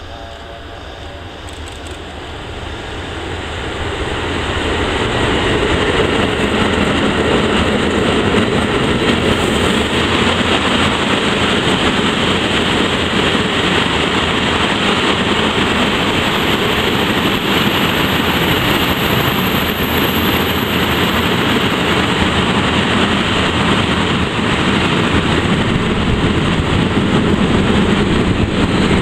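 SNCB class 13 electric locomotive approaching and passing with a freight train of steel-coil wagons. The noise builds over the first five seconds or so, then the loaded wagons roll past in a steady, loud rush of wheels on rail.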